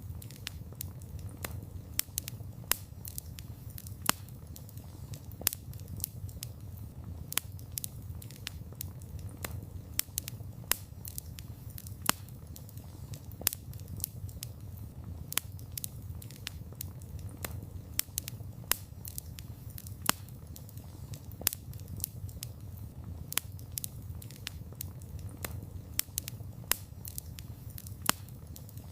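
Wood fire burning with frequent sharp, irregular crackles and pops over a steady low rumble of the flames.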